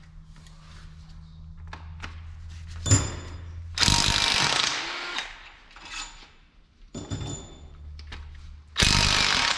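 Impact wrench hammering in two bursts, about four seconds in and again near the end, breaking engine bolts loose during an LS engine teardown.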